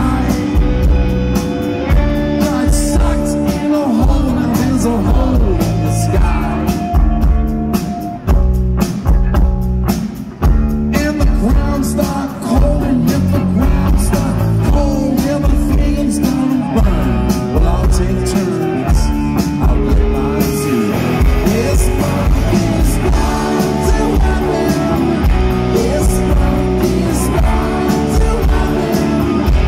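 Live rock band playing a song: electric guitar, bass guitar and drum kit, with a man singing lead.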